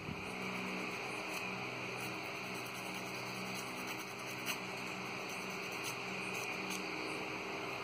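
Steady low hum under a constant hiss, with a few faint ticks.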